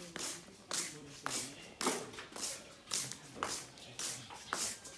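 Fish being scraped clean, in short rasping strokes about two a second.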